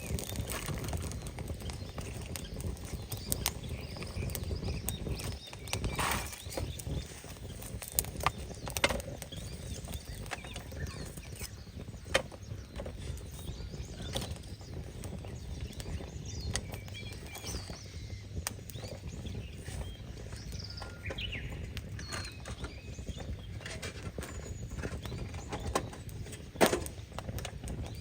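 Rustling and handling of camping gear against steady outdoor background noise, with several sharp knocks and clacks scattered through it and a faint bird chirp near the end.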